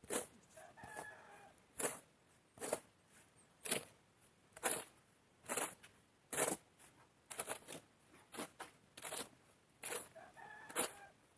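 Rooster crowing faintly twice, about a second in and again near the end, over louder, regular crunching strokes about once a second.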